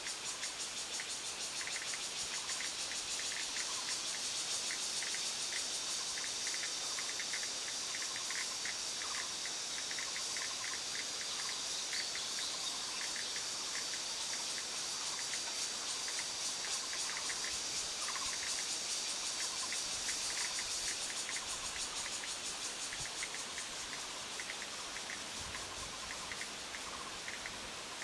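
Cicada singing: a steady, shrill high buzz that swells over the first few seconds and fades out after about twenty seconds. Under it runs a quicker, lower insect chirping, several pulses a second.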